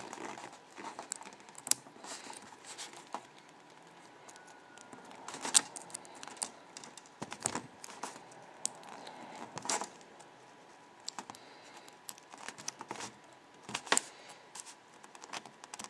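Irregular small metallic clicks, taps and scrapes as a Chubb steel padlock is taken apart by hand.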